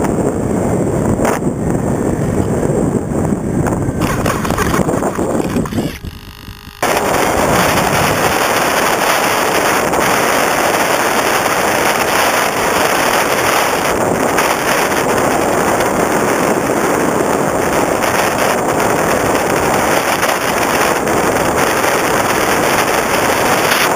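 Loud, steady rush of air over the onboard camera's microphone on an FPV Raptor RC plane in flight. It drops away briefly about six seconds in, then comes straight back.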